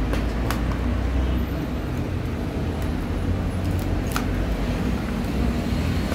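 Steady low rumble of road traffic, with a few light clicks and taps from the circuit board and cables being handled, one near the start and one about four seconds in.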